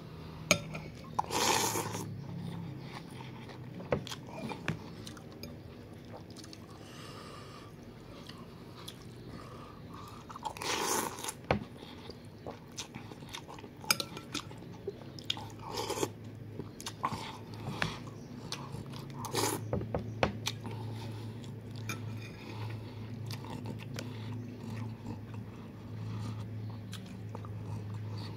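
Close-up eating of noodle soup: chewing and mouth sounds, with a few louder slurping bursts and light clicks of a metal fork and spoon against a glass bowl.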